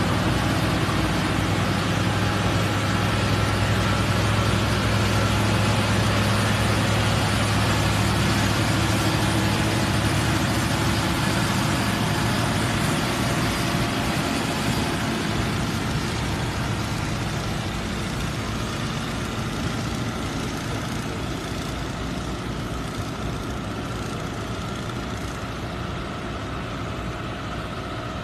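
Heavy-haul truck diesel engines running as the convoy crawls past, a steady low drone with rolling noise from the many-axle trailer. The engine sound is strongest in the first half and fades gradually as the trucks move on.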